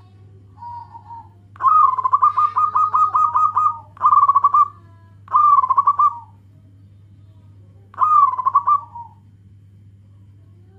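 Zebra dove (perkutut) singing. A long phrase of rapid staccato coos begins about a second and a half in, and three shorter cooing phrases follow, with a faint short call just before them. A steady low hum runs underneath.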